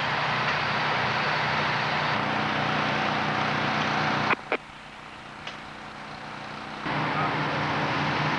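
Fire truck engine running steadily with a hiss over it. About four seconds in there are two sharp clicks, and the noise drops for a couple of seconds before coming back.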